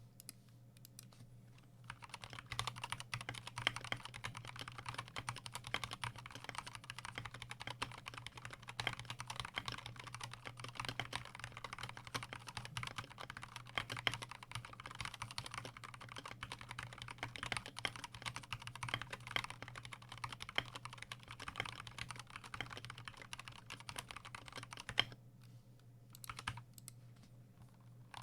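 Continuous typing on a stock Gamakay TK68 mechanical keyboard with Gateron Yellow linear switches and no foam dampening: a dense stream of key clacks. The typing starts about two seconds in and pauses briefly near the end.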